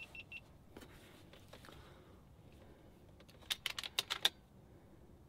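A quick run of about eight sharp clicks from an FX Impact MKII air rifle being handled and readied to shoot, about three and a half seconds in. Three short high beeps right at the start, and a few faint clicks between.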